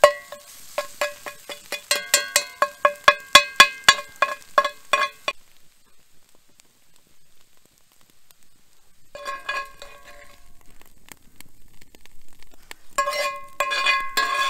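Metal spoon scraping and knocking against a cast-iron skillet while stirring scrambled eggs: quick, even strokes, each with a ringing tone. They stop for a few seconds about five seconds in, then come back in two short runs as the eggs are scooped out of the pan, with faint sizzling underneath.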